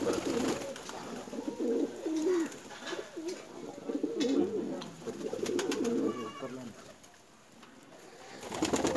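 Several domestic fancy pigeons cooing, their low calls overlapping one another continuously, dying down about seven seconds in.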